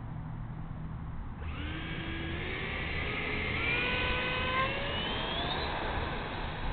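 Electric ducted fan of an RC T-50 jet (70mm fan, 3850kv motor) spooling up for the takeoff roll: a whine starts about a second and a half in and climbs steadily in pitch for about four seconds as the jet accelerates away.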